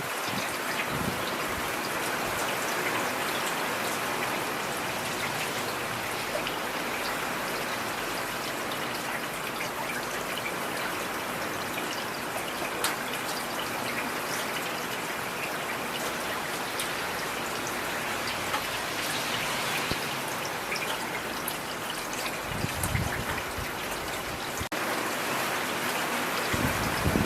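Heavy rain falling steadily, with a dense patter of drops and a few brief low thumps near the end.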